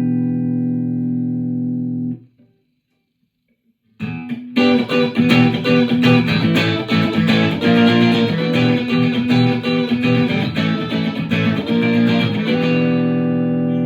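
Harley Benton JA-60CC electric guitar being played: a held chord is cut off about two seconds in, and after a short silence comes a busy run of picked notes and chords. It ends on a chord left ringing.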